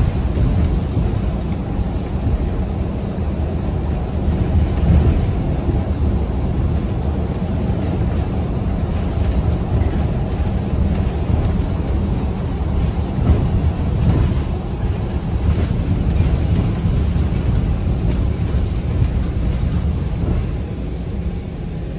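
Steady low rumble of a moving city bus heard from inside the cabin: drivetrain and road noise, with the passing street faintly behind it.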